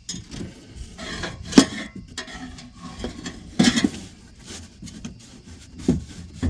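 Irregular scraping, rubbing and knocking as wires and a hand tool are worked in against a travel trailer's plastic underbelly membrane, with sharper knocks about a second and a half in, near the middle and near the end.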